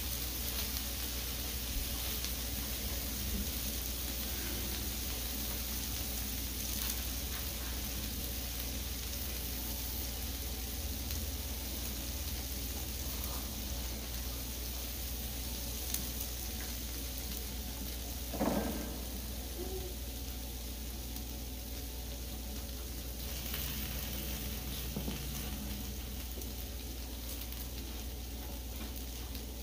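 A steady hiss under the faint chewing and small clicks of two people eating with chopsticks, with one brief vocal sound about eighteen seconds in.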